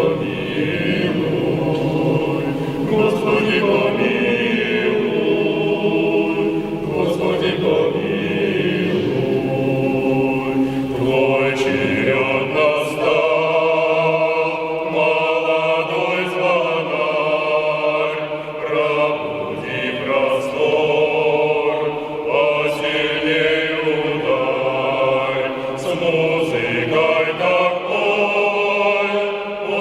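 A choir singing a slow song in harmony, several voices holding long notes together.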